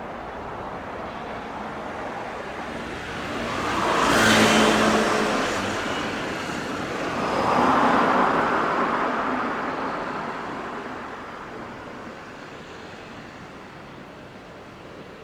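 Road traffic: two vehicles pass close by, one about four seconds in and another about eight seconds in, over a steady background of traffic noise.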